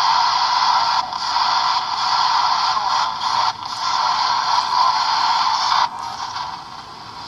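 Shack Hack ghost box, a Radio Shack portable radio modified to sweep the band without stopping, giving out a steady hiss of static broken by brief drop-outs as it jumps between stations. It goes quieter for its last second or so.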